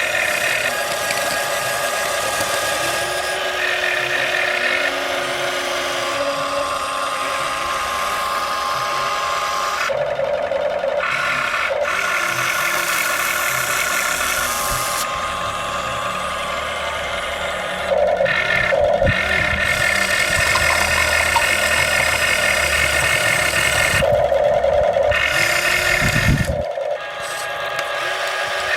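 Steady whine of small electric motors, its pitch pattern changing abruptly several times.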